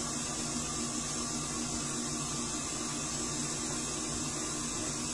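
Steady low hum with a hiss over it and no distinct events: background room noise.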